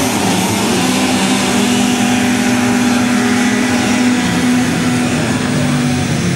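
Engines of several six-wheel amphibious ATVs racing on a dirt track, running steadily at held high revs with little change in pitch.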